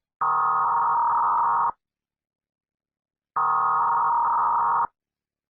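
Electronic alert tone of a mock Emergency Alert System broadcast, sounding in two identical bursts of about a second and a half each, separated by silence: the opening tones of a mock emergency alert.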